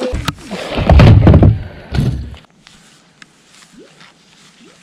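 A run of heavy thuds and knocks lasting about two and a half seconds, loudest about a second in, then quiet with two faint short rising squeaks near the end.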